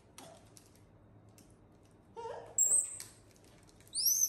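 A monkey gives two short, high-pitched squeals, one about two and a half seconds in and one near the end that rises and then falls, with a lower call just before the first. Between the calls there is light crinkling and clicking of plastic wrapping being handled.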